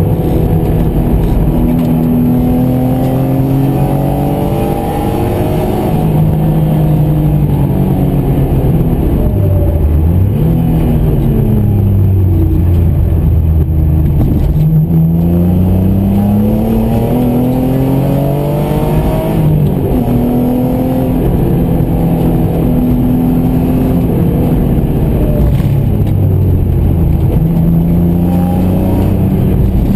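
BMW M3 engine heard from inside the cabin under track driving. Its pitch climbs for several seconds at a time as it accelerates, then falls away for braking and shifts, with a marked dip about ten seconds in and another drop just before twenty seconds.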